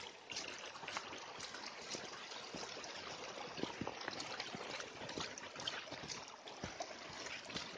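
A shallow runoff stream trickling and splashing over stones down a rutted forest track, a steady soft hiss. Scattered light crunches of footsteps on wet leaves and gravel run through it.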